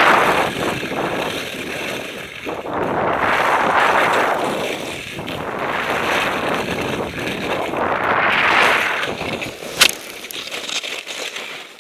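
Telemark skis hissing and scraping through snow in a series of turns, each turn a swelling rush, with wind buffeting the helmet-camera microphone. About ten seconds in, a sharp knock as the skier falls and tumbles into the snow, then rougher, quieter scuffling.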